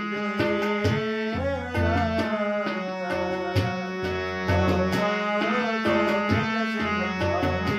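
Harmonium playing a melody over a held drone, with a tabla-style drum beat keeping a steady rhythm and a voice singing along.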